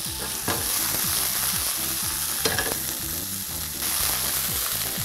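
Fresh scallops searing in hot oil in a pan over high heat: a steady sizzle. A few short clicks come from tongs turning the scallops, about half a second and two and a half seconds in.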